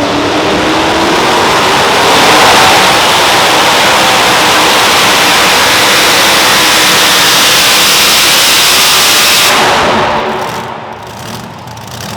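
Super modified two-wheel-drive pulling truck's engine at full throttle under load, its pitch rising over the first couple of seconds and then held loud and steady. Near the end it drops off abruptly as the throttle comes off.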